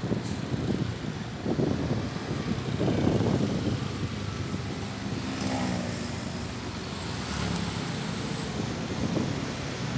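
Road travel noise: vehicle engines running, with wind rumbling and buffeting on the microphone, unsteady throughout.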